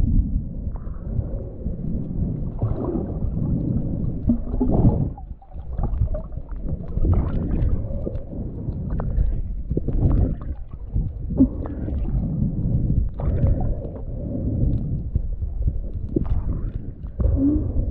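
Muffled underwater rumble of water moving against a GoPro housing held below the surface, with scattered crackles and knocks as the camera is swept through the water. The noise dips briefly about five seconds in.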